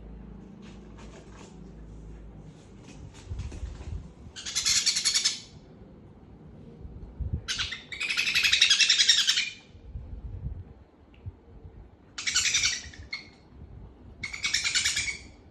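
A bird calling in four loud bursts of rapid, rasping calls, each about a second long, with fainter chirps and clicks in the first few seconds.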